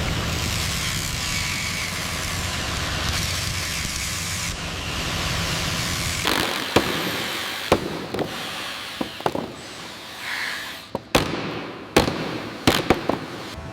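A steady rushing noise with a low rumble for about six seconds, then it thins out and a string of about a dozen sharp, irregularly spaced knocks and bangs follows.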